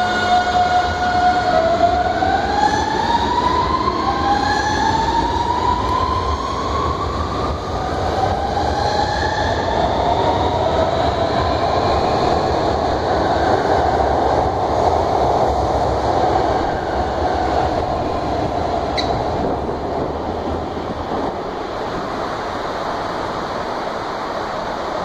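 Alstom Series 9000 electric multiple unit pulling away from a station. A steady electric hum starts rising in pitch about a second and a half in, climbing in several steps as the train accelerates, over wheel-on-rail rumble. The sound eases off near the end as the train moves away.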